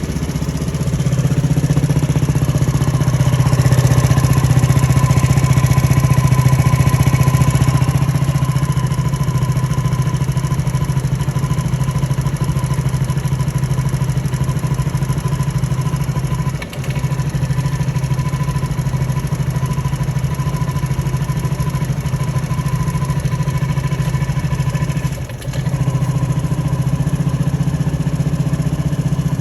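SYM DRG scooter's single-cylinder engine idling, louder for the first several seconds and then settling, with a thin steady whine above the engine note; twice, a little past halfway and near the end, the engine note dips briefly and picks up again. The owner reports an abnormal engine noise and says the engine tends to stall soon after starting.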